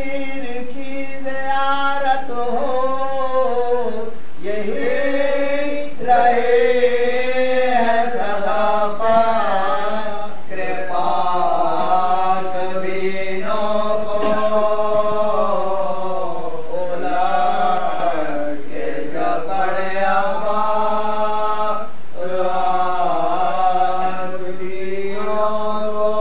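Men's voices chanting an Urdu salam, a Muharram devotional poem, unaccompanied, in long drawn-out melodic phrases. A lead voice is joined by other men.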